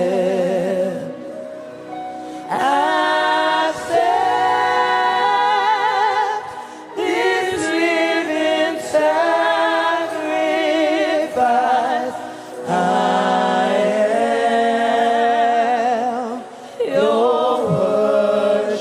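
Gospel worship singing: voices together holding slow, long notes with a wide vibrato, in phrases broken by short breaths about every two to five seconds.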